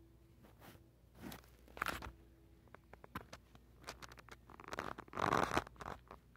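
Rustling and scraping handling noise on a phone's microphone as it is moved, in a few short bursts with clicks. The longest and loudest burst comes about five seconds in.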